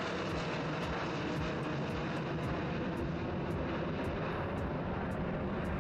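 Airbus Beluga XL's two Rolls-Royce Trent 700 turbofan engines climbing out after takeoff: a steady, even jet noise.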